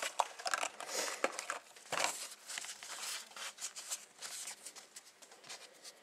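Paper tissue rustling and crinkling in the hands, with small irregular clicks and taps from handling a small plastic bottle. The rustling thins out toward the end.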